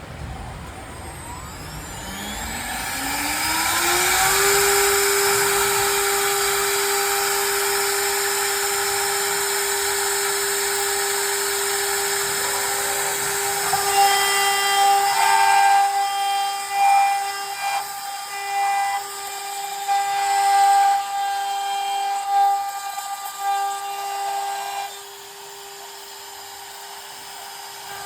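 CNC router spindle spinning up with a rising whine over the first few seconds, then running at a steady high whine. From about halfway the bit starts carving wood, and the sound turns uneven, surging and dipping as the cut loads and unloads the spindle.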